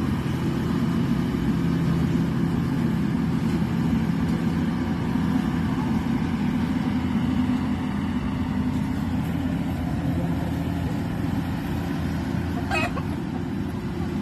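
Rice combine harvester's engine running steadily under load, a constant low drone. A short high call is heard near the end.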